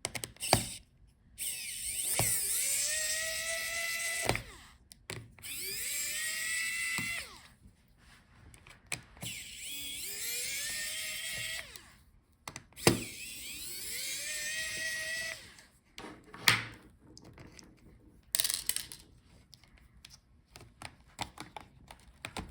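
Small electric screwdriver running in four bursts of about two seconds each, its whine rising in pitch as it spins up, backing out the screws in a laptop. Sharp clicks and taps of small parts being handled come between the bursts and during the last several seconds.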